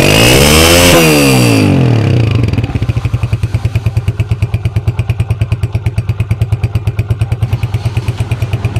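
Honda CG125's single-cylinder four-stroke engine, started cold for the first time after restoration, revved once and then idling with an even putter. The revs peak about a second in and drop back to idle by two and a half seconds.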